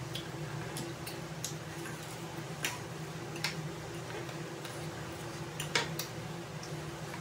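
Eating sounds: chewing on chicken wings with a scatter of short, sharp clicks, the loudest about three-quarters of the way in, over a steady low hum.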